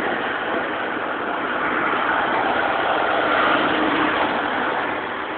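Steady running noise of a boat's engine heard on deck, without breaks.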